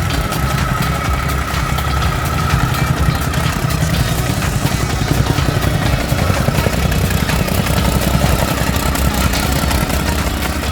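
Petrol-engined soil compactor running steadily, compacting G7 fill soil.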